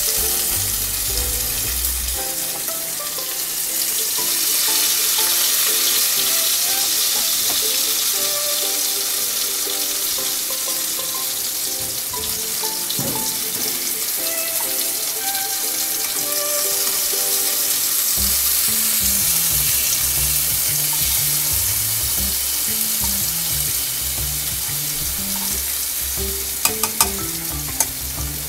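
Pomfret fillets shallow-frying in hot mustard oil in a kadai: a steady, crackling sizzle, under soft background music. A few sharp clicks sound near the end.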